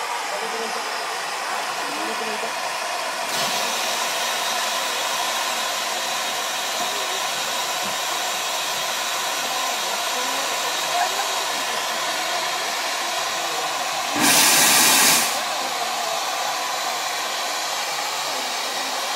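Standing Mallet tank steam locomotive hissing steadily as it blows off steam; the hiss grows brighter about three seconds in, and a louder blast of steam lasts about a second near the two-thirds mark.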